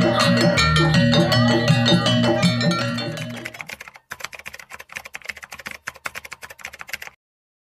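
Live gamelan music for jaranan: bronze saron metallophones struck with mallets over kendang hand drums, playing a fast interlocking pattern. It fades out about three and a half seconds in. Fainter, sparse tapping percussion follows and stops abruptly near the end.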